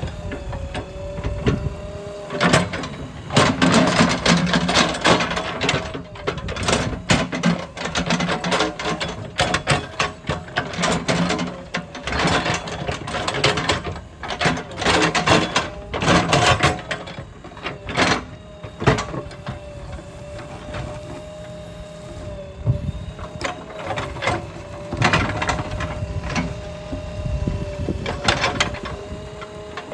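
Earthmoving machine at work: a steady engine and hydraulic whine under repeated clanks, knocks and scraping.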